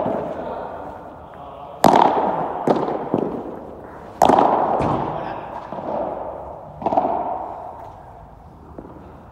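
Padel rally: about half a dozen sharp pops of the ball off the rackets and court, each ringing on in the echoing covered hall. The loudest is an overhead smash about two seconds in; the hits stop after about seven seconds.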